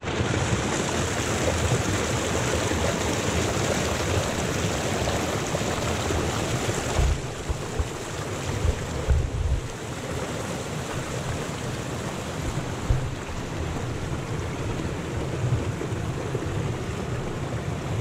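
Mountain creek rushing and splashing over rocks close to the microphone, a steady loud whitewater rush. A few low thumps on the microphone near the middle.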